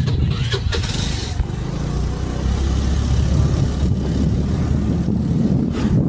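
A motor vehicle's engine running steadily as it travels, with wind buffeting the microphone in gusts during the first second or so.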